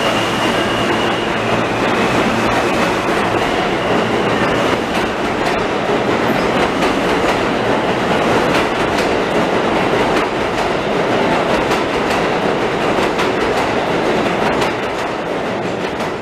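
New York City subway train running out of the station past the platform: a steady rumble of wheels on rail with many rapid clicks. A steady whine at the start fades about two seconds in. The noise falls away near the end as the last car clears.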